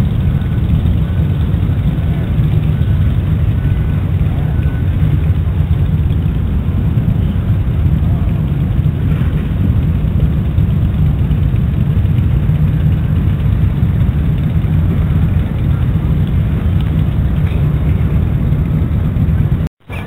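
Steady, loud low rumble of outdoor background noise at the shore, with no clear events in it; it drops out briefly near the end.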